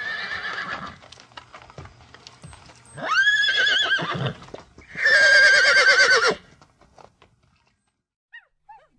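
Horse whinnying three times: a shorter call at the start, then two longer ones about three and five seconds in, each with a shaking, wavering pitch, the last the loudest.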